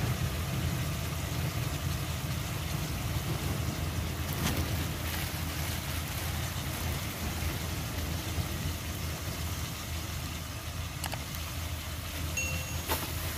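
Stove burner running under a pan of tofu stir-fry that is simmering: a steady low rumble with an even hiss over it, and a few faint clicks.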